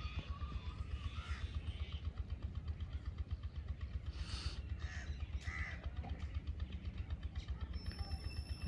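Low, rapidly pulsing machine running, with crows cawing several times over it.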